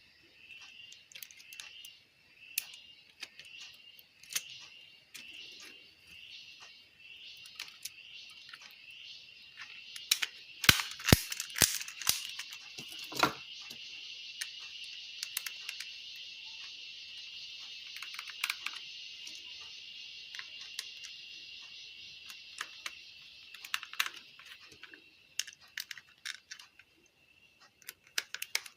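Hands reassembling a car stereo: plastic and metal parts clicking, knocking and snapping into place, with a cluster of sharp snaps about ten to thirteen seconds in. Under it runs a high hiss, pulsing at first and then steady for about ten seconds.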